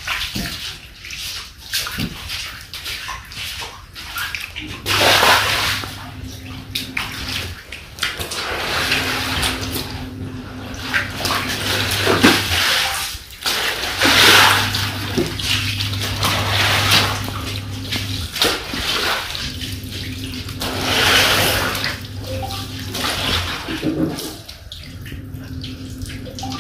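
Floodwater splashing and sloshing across a concrete floor as it is swabbed and wrung out with a cloth, in repeated surges every few seconds. A low steady hum comes and goes in the background.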